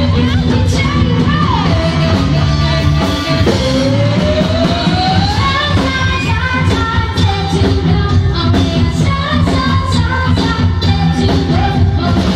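Live band playing a song, loud and continuous, with a woman singing lead over drums, electric bass and keyboard.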